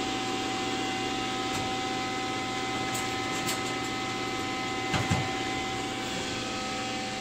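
Steady mechanical hum with a constant high whine from a running machine, with a couple of light knocks about five seconds in.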